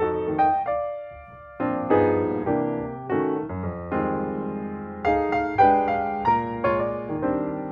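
Piano music: chords and melody notes struck one after another, each ringing and fading, with a short pause about a second in.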